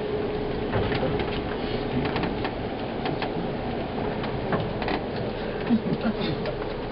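Aerial tramway cabin arriving at its station, heard from inside: a steady hum under scattered clicks and knocks as the car bumps along.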